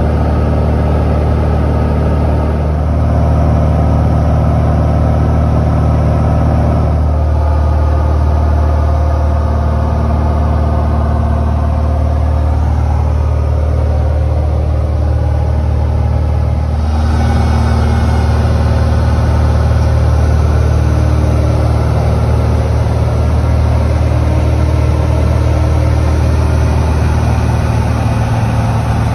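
Cessna 172's piston engine and propeller droning steadily in cruise flight, heard inside the cabin. The tone shifts slightly twice.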